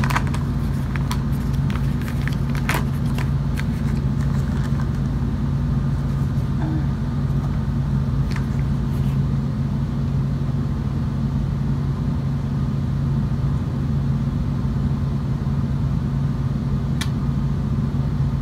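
Dry cornstarch crunched between the teeth: crisp clicks and crackles in the first few seconds and once more near the end. Under it is a steady low hum of two tones.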